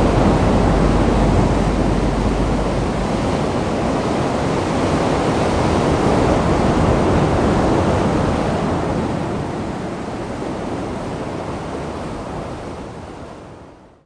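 Ocean surf: a steady rushing wash of waves that fades out over the last few seconds.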